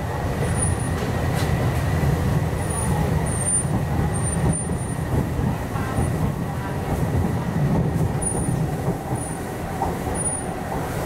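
In-cabin running noise of an MTR East Rail Line R-train, a Hyundai Rotem electric multiple unit, moving at speed: a steady low rumble of wheels on rail and car body, with a faint steady high tone above it.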